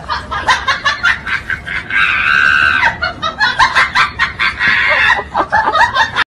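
Loud, high-pitched cackling laughter in rapid bursts, with a longer held shriek about two seconds in.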